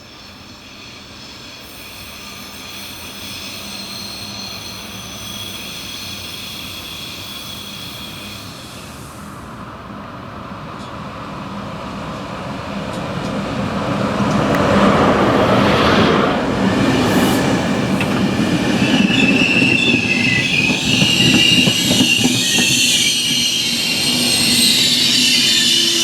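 A train running along the track and growing steadily louder as it comes close, with high-pitched squealing from its wheels on the rails, strongest in the last few seconds.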